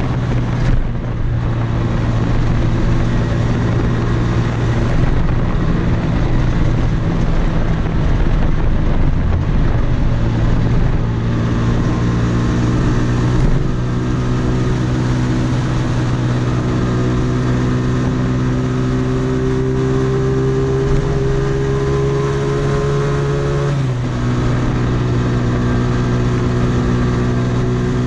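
Blade 250 quadcopter's motors and propellers humming steadily in flight, heard from its onboard camera over a rush of wind and prop wash. The pitch shifts a few times: about a third of the way in, near the middle, and again a few seconds before the end.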